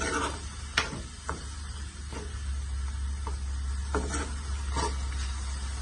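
A spoon stirring chicken liver gravy in a non-stick pan, with a few sharp scraping clicks against the pan over a soft sizzle from the simmering gravy. A steady low hum runs underneath.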